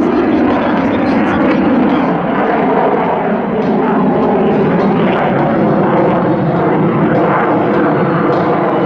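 MiG-35 fighter's twin RD-33 turbofan engines, loud and steady as the jet maneuvers overhead.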